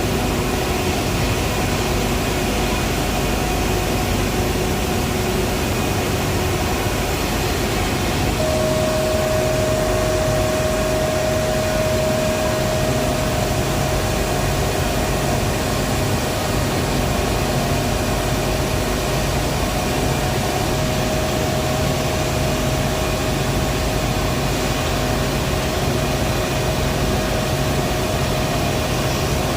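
Power plant machinery running with a loud, steady noise and several constant hums; a steady mid-pitched whine comes in about eight seconds in and holds.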